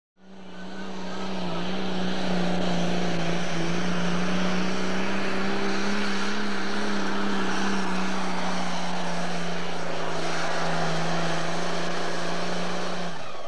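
Pulling tractor's engine at full throttle under load during a pull, a loud steady drone that swells up over the first couple of seconds and holds a nearly constant pitch, then drops in pitch near the end.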